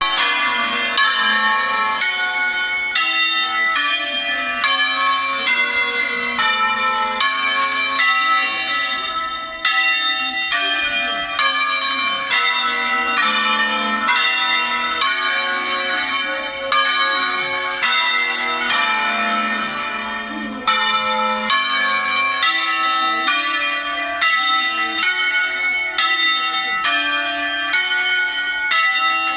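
Church bells of a six-bell Veronese-style tower in A-flat ringing in a rapid, even succession of strikes, about two a second, the tones overlapping and ringing on.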